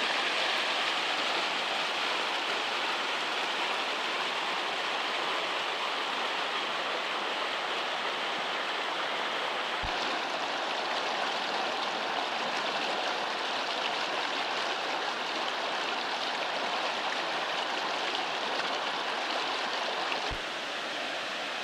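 Stream water rushing and splashing down a rocky cascade, a steady dense hiss.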